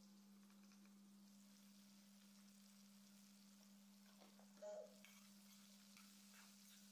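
Very faint sound: a steady low electrical hum, with pork faintly sizzling in a kadai. A steel spoon clinks and scrapes against the pan once, a little past halfway.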